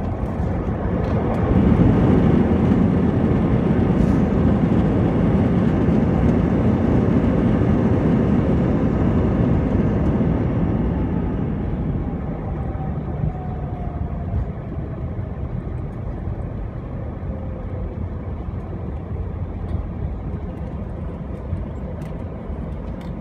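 Airbus A319 jet engines in reverse thrust on the landing rollout, heard from inside the cabin. A broad roar swells about two seconds in, holds for several seconds, then fades as the engines spool down, with a thin falling whine through the middle.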